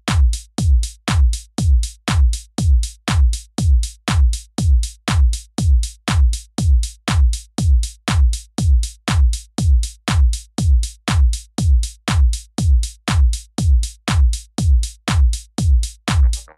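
Background electronic music: a drum-machine kick drum beating steadily, about two and a half beats a second, each hit a sharp click with a deep booming tail that drops in pitch. Other parts of the track join in near the end.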